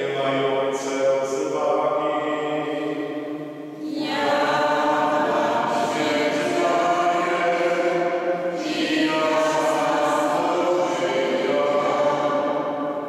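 A priest's voice chanting a liturgical text in long sustained phrases, with short breaks about four seconds and eight and a half seconds in.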